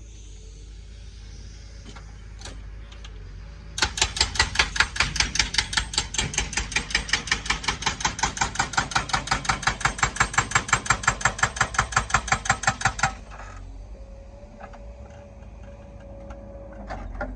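Excavator-mounted hydraulic breaker hammering in a fast, even run of blows, about seven a second, starting about four seconds in and stopping abruptly some nine seconds later. A low, steady engine rumble runs underneath.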